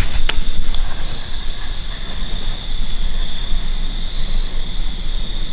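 Crickets singing in a steady, unbroken high-pitched chorus, over a low rumble on the microphone. A single sharp click sounds about a third of a second in.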